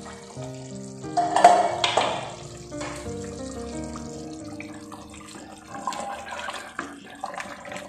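Background music with a steady melody over a wooden spoon stirring thick, wet goat-head curry in an open stainless-steel pressure cooker, sloshing and scraping, loudest about a second and a half in.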